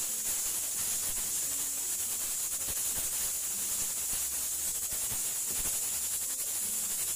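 Steady high hiss of steam venting from a pressure cooker on a gas stove, with light scraping of a spoon stirring flour in an aluminium wok.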